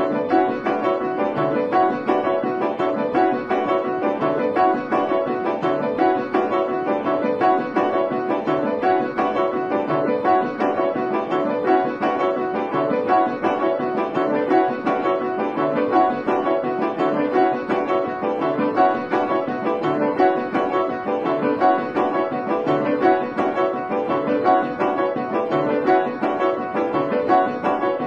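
Background piano music, a busy stream of quick notes.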